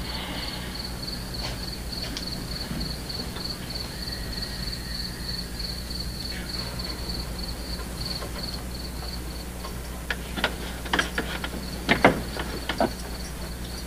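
Crickets chirping in a steady, rapid, evenly pulsing high trill over a low electrical hum. A few sharp clicks and knocks come about ten to thirteen seconds in.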